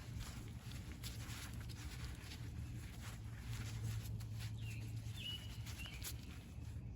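Faint clicks and light scraping from small brake parts being handled, over a low steady hum. A bird chirps briefly several times, mostly in the second half.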